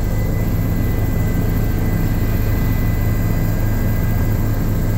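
Helicopter engine and rotor noise heard from inside the cabin: a loud, steady low drone with faint steady whining tones over it.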